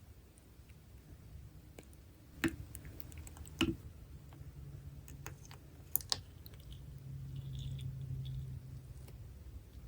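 Sharp clicks and taps from handling slime-making tools and containers, three louder ones about 2.5, 3.7 and 6 seconds in, with soft low handling noise between them.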